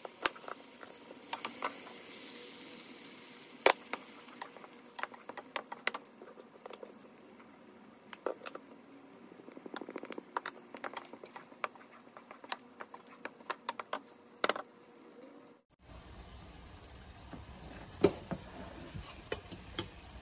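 A wooden spoon stirring and scraping a fava-bean, tomato and onion mixture in a frying pan, with a faint sizzle and repeated sharp taps and clicks of the spoon against the pan. After a cut near the end, a metal utensil clinks against the pan while stirring scrambled egg.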